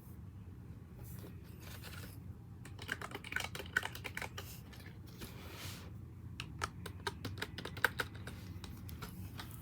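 Typing on a wooden keyboard: keystrokes clicking in short, irregular runs separated by brief pauses.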